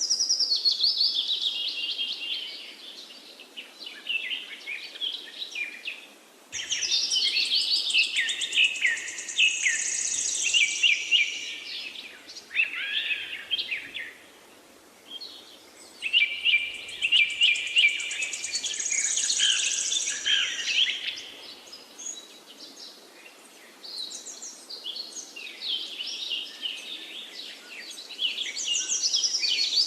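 Songbirds singing in long, rapid, jumbled phrases of high chirps and trills, with short lulls between the phrases.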